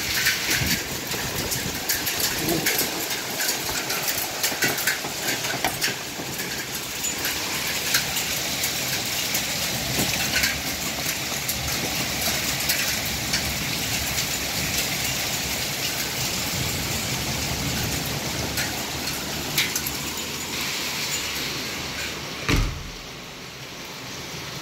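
Hailstorm: a dense, steady rattle of hailstones striking hard surfaces, with sharp clicks from single stones throughout. A single heavy thump about 22 seconds in.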